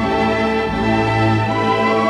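Background music: orchestral strings playing a slow, sustained melody over a changing bass line.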